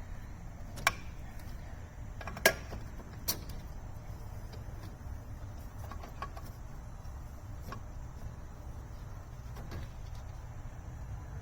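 A few sharp clicks and knocks as parts of the transmission's shift linkage are handled and set in place, the loudest about two and a half seconds in, with fainter ticks later, over a steady low hum.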